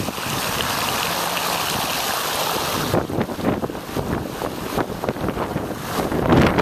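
Bicycle wheels pushing through floodwater: a steady hiss of spray, turning to uneven splashing about three seconds in, with a louder surge near the end. Wind buffets the microphone.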